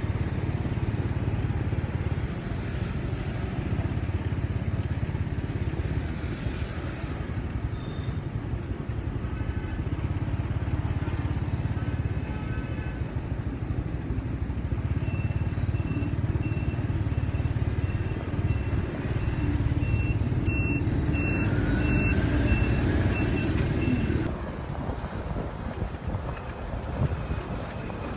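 Honda motor scooter running at low speed on a town street, a steady low engine and road rumble. Past the middle a high electronic beep repeats about once or twice a second for several seconds.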